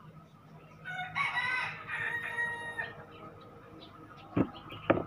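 A rooster crowing once in the background for about two seconds, then two sharp knocks near the end.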